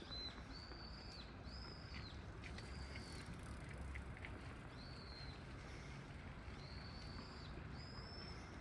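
A narrow canal stream flowing steadily, a soft, even rush of water. Over it, a thin, high whistled call repeats about seven times, each lasting about half a second.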